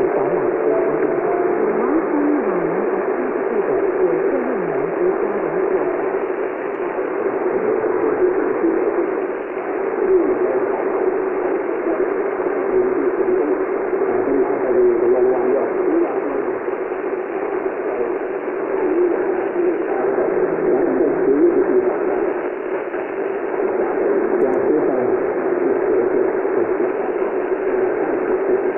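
Shortwave AM radio reception, mostly steady hiss and static, with faint wavering tones of the buried signal beneath the noise.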